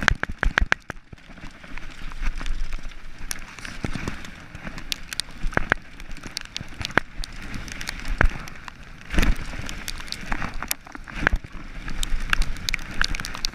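Downhill mountain bike running fast down a rough dirt and gravel trail: tyres rolling over the ground under a steady rush of noise, with frequent sharp clicks, knocks and rattles from the bike over bumps.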